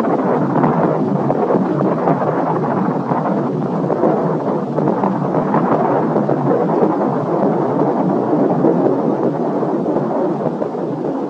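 Loud, steady rumble and crackle of an Atlas-Centaur rocket's propellant fireball burning after its explosion at launch, with no single distinct bang.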